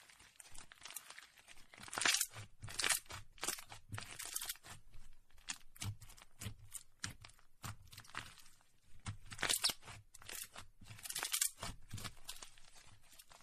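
Clear slime with a plastic plant sprig inside being squeezed and kneaded by hand, giving a dense run of irregular crackles and pops with a few louder bursts.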